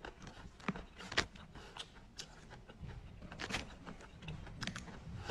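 Faint eating sounds, with a few sharp clicks spread through it over soft mouth noise.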